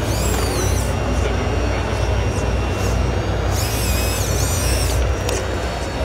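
Busy exhibition-hall din: crowd chatter over a steady low hum. Two spells of high-pitched electric whine glide up and down from a radio-controlled model's drive, and a single sharp click comes near the end.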